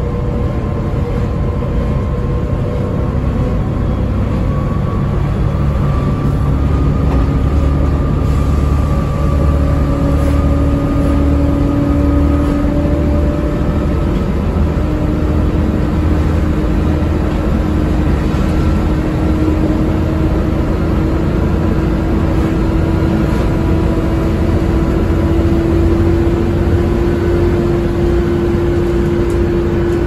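Volvo B7TL double-decker bus's six-cylinder diesel engine and driveline running under way, heard from inside the lower deck: a steady low rumble with a whine that rises slowly in pitch.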